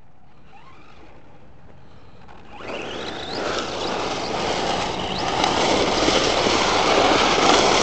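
Electric RC short-course trucks driving on wet asphalt. At first a faint motor whine rises and falls in the distance. From about two and a half seconds in, a loud steady rush of tyres on wet pavement and motor whine takes over as the trucks run close by.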